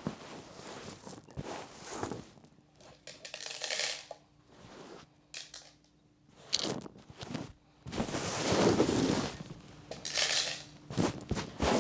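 Dried corn kernels being handled and scattered for chickens: irregular rustling, crunching and scattering noises, loudest about eight to nine and a half seconds in.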